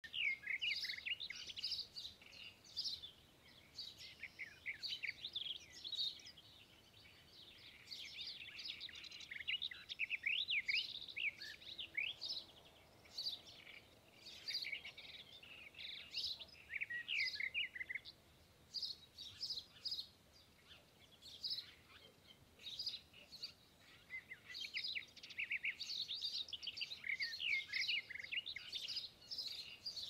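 A chorus of several songbirds chirping and singing at once: many short, high calls and trills overlapping, with a few brief lulls.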